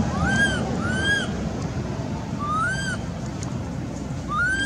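Baby macaque giving four short, thin coo calls, each rising and then falling in pitch: an infant crying and calling for its mother.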